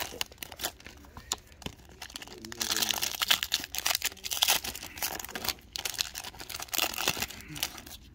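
Foil wrapper of a Topps Pro Debut baseball card pack crinkling and tearing as it is handled and opened, in several short spells of crisp rustling.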